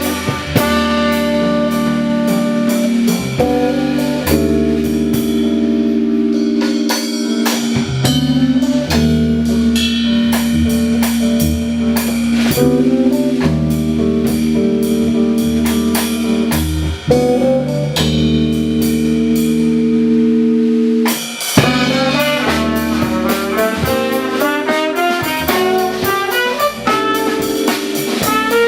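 Jazz quartet playing: drum kit, keyboard holding chords over a left-hand bass line, electric guitar and trumpet. The held chords stop about three-quarters of the way in, and a busier run of quick notes takes over.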